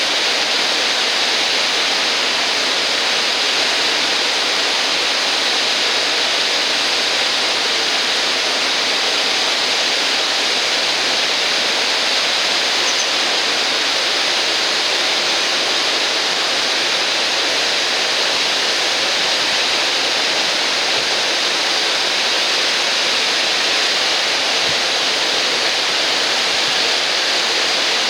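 River waterfall, water pouring and splashing in a steady, unchanging rush that is strongest in the higher range.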